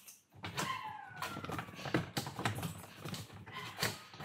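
Irregular clicks, knocks and rattles of a hand tool and plastic trim as screws are undone under a car's front bumper, with a brief squeak that falls in pitch about half a second in.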